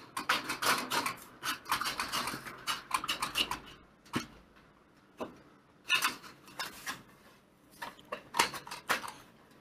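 Metal shears cutting a thin powder-coated iron (GI) sheet along a marked line: repeated metallic snipping and crunching. It comes in two runs, with a near pause about four seconds in.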